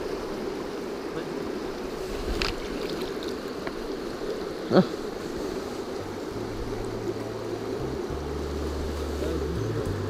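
Rushing stream water, steady, with one brief sharp sound just before the middle. About six seconds in, low bass notes of background music come in.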